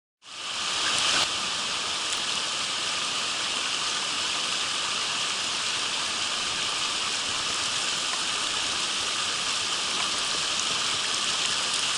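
Mountain stream rushing over rocks: a steady hiss of water that fades in just after the start, slightly louder for the first second.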